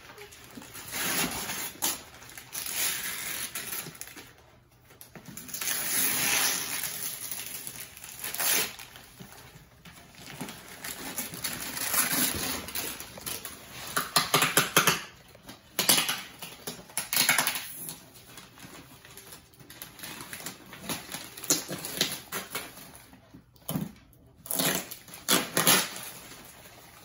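Gift wrapping paper being torn and crumpled off a box, in irregular bursts of ripping and crinkling.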